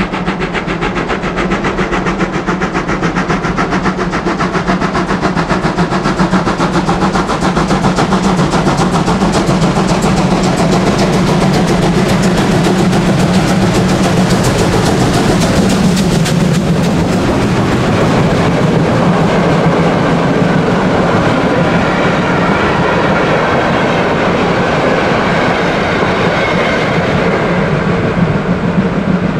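Class 01 two-cylinder Pacific steam locomotive 01 2066 working hard up a steep gradient, its exhaust beating fast and steadily and growing louder as it approaches. It passes close about halfway through, and the coaches then roll by with wheels clattering over the rail joints.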